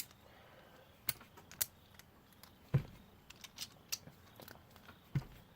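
Lego plastic pieces clicking and knocking as they are handled, with sharp, irregular clicks and a couple of duller taps.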